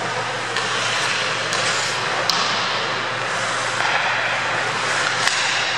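Ice hockey in play: skates scraping and carving the ice over a steady low hum, with a few sharp clicks of sticks on the puck, one about two seconds in and another near the end.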